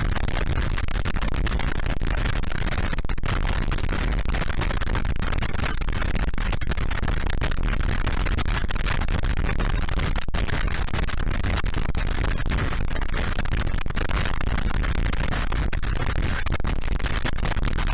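Steady rush of wind and road noise on a motorcycle-mounted microphone while riding, with the low drone of the motorcycle underneath.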